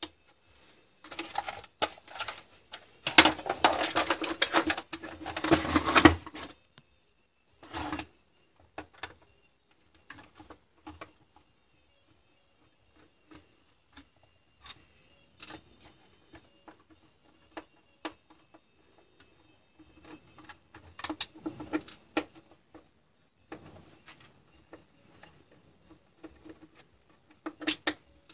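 Hand-work noise on a wooden workbench: several seconds of dense clattering and rattling near the start, then scattered light clicks and taps, with small screws being taken out of a cordless drill's battery pack and set down.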